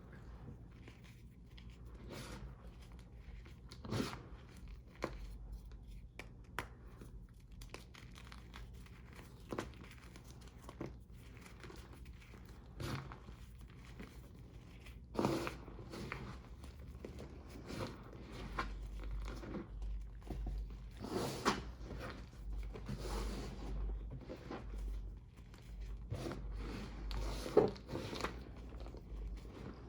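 Reformed gym chalk being crushed, giving irregular crunches, crackles and sharp snaps that grow busier and louder about halfway through. The chalk was not fully dried, which makes the crush crunchy rather than powdery.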